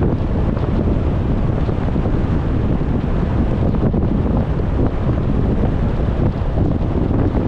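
Steady rushing wind and road noise from a moving car, with wind buffeting the microphone.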